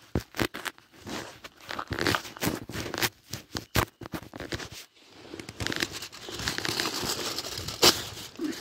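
Aluminium foil crinkling and crumpling as it is torn from a roll and wrapped by hand around potatoes for roasting in embers. There are irregular crackles, a short lull a little before the middle, denser crinkling after it, and one sharp crack about a second before the end.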